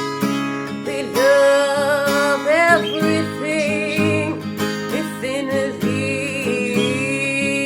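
Music: acoustic guitar strumming under a melody of long, wavering held notes.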